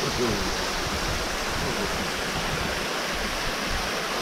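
Steady rushing of a small waterfall, thin streams of water pouring down a mossy rock face into a shallow pool.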